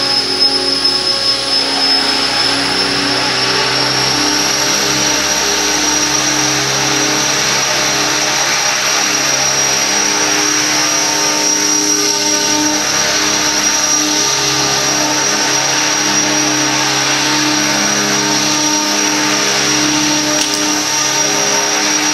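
Align T-Rex 600 RC helicopter flying, its rotor and drivetrain giving a steady high whine that rises slightly in pitch about three seconds in.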